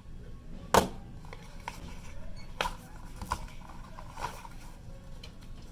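Wireless-earbud charging case and its packaging being handled: one sharp plastic click about a second in, then lighter clicks and rustling.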